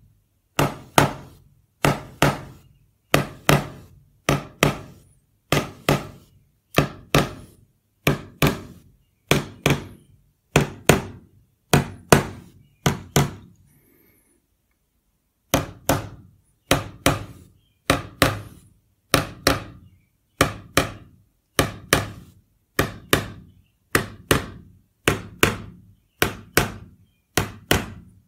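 A small metal tool tapping the metal tabs of a PowerBook 180 LCD bezel into the circuit board, in quick double taps about once a second, with a pause of about two seconds midway. The taps are firm but not hard, to seat the bezel tighter against the LCD.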